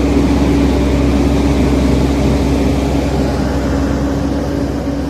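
Diesel engine of heavy earthmoving equipment, a bulldozer or wheel loader, running steadily at constant revs.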